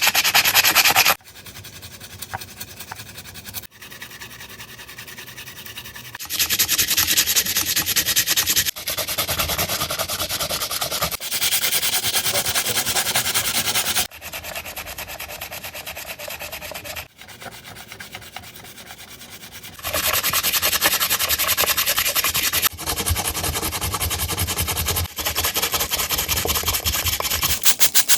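Scrubbing and rubbing sounds of a machine being cleaned, in short segments a few seconds long that cut abruptly from one to the next, some loud and some quieter.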